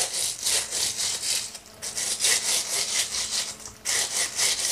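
Plastic bags over the hands rustling and rubbing on a board while rolling a log of biscuit dough back and forth: quick rhythmic strokes, about four a second, broken by two short pauses.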